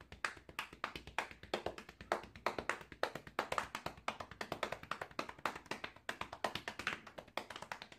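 Chest drumming: open hands slapping and patting a man's chest in a fast, rhythmic drum-beat pattern, a quick, unbroken run of slaps.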